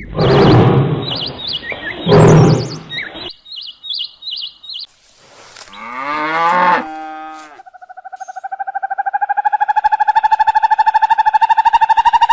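A run of animal calls. First come high, wavy chirps over loud noise, then a few falling calls, then one long, rapidly pulsing call held on a steady pitch that swells in loudness over about five seconds.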